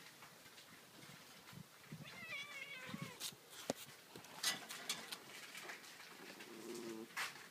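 A cat meows once about two seconds in, a short wavering call, with scattered faint knocks and clicks after it.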